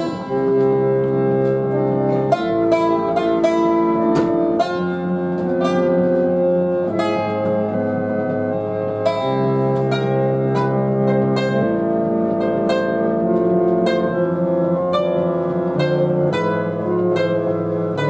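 Synthesizer jam: sustained chords that change about every two seconds, with short plucked-sounding notes repeating over them.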